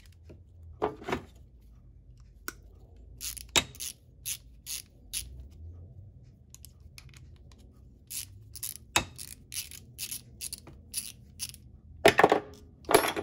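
Hand ratchet clicking in short runs, two to three clicks a second, as a socket turns a nut onto a damaged bolt thread. Near the end comes a loud clatter of metal tools.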